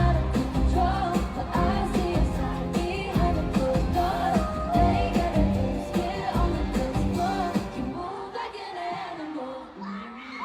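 Pop song with sung vocals over a heavy beat. About eight seconds in, the beat cuts off and the last sustained sounds fade out.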